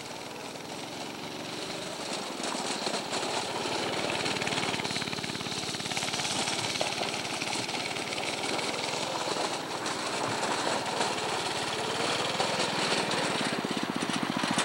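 Small go-kart engine running steadily with a rapid, even putter, growing louder over the first few seconds.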